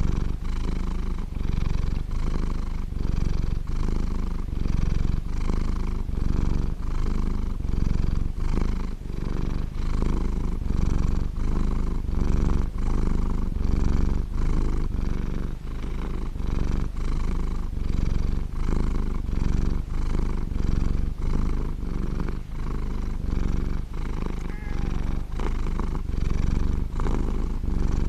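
Blue British Shorthair cat purring steadily and loudly while being stroked on the chin and head, the purr swelling and dipping with each breath about once a second.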